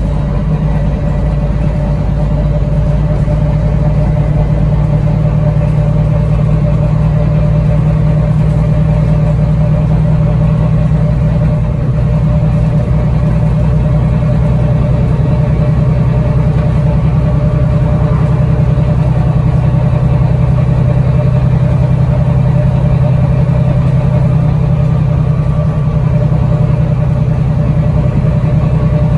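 Bus engine and drivetrain heard from inside the passenger saloon, a steady low drone that holds an even pitch as the bus drives along.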